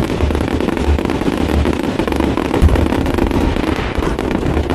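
Aerial firework shells bursting in a dense barrage: a continuous din of pops and crackles with repeated deep booms.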